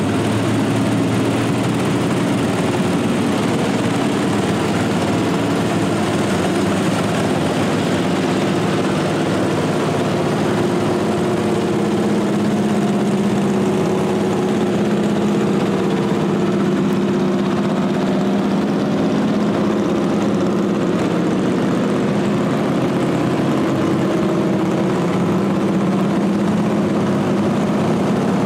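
Small engines of several vintage garden tractors running as they drive past in a slow line, a steady drone of overlapping engine notes that shift as one machine after another goes by.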